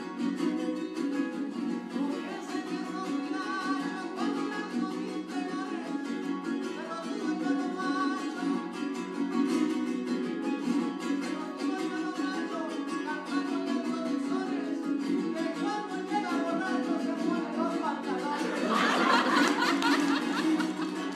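A small jarocho guitar is strummed in son jarocho style. Near the end the audience breaks into cheering and clapping over it.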